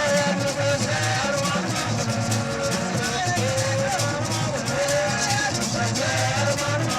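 Music: a gliding melody line over a steady beat.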